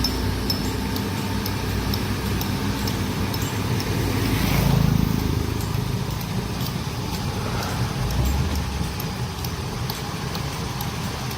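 Heavy earthmoving machine's engine running steadily, with a low rumble that swells briefly about halfway through.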